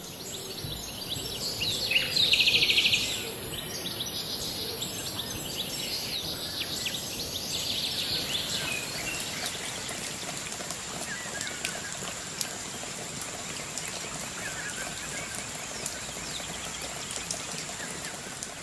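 Birds chirping over a steady rushing hiss like rain or running water, with a loud trilling call about two seconds in and scattered chirps and clicks after it.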